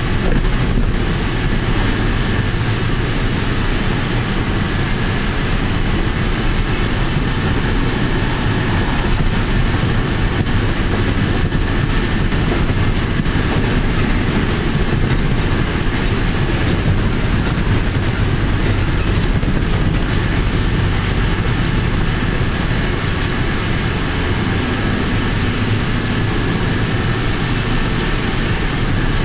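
Motorcycle riding at steady cruising speed: engine running with heavy wind rush and road noise on the microphone.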